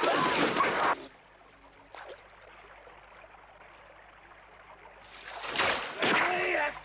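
Water splashing hard in two loud bursts, one at the start lasting about a second and another near the end, with a cry in the second burst; a quiet stretch with a faint click lies between them.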